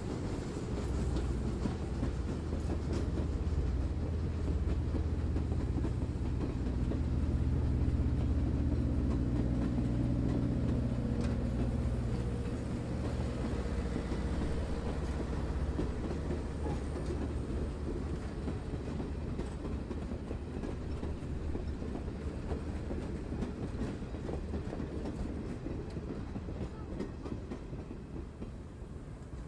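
Passenger coaches of a steam excursion train rolling past on the rails, a steady low rumble that peaks about a third of the way in and then fades as the train moves off.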